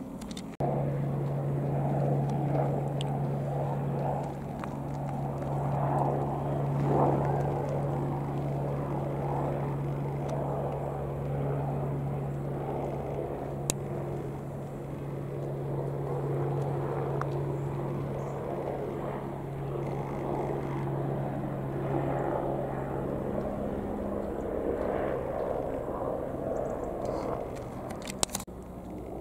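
Aircraft engines running steadily, a low droning hum that cuts in sharply just after the start and eases off about three-quarters of the way through.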